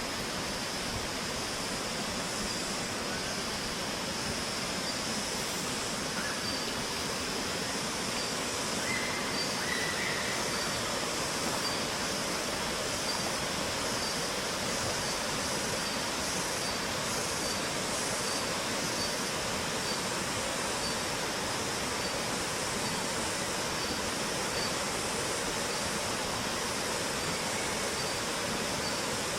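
Steady rush of flowing river water, with a faint high steady tone running through it.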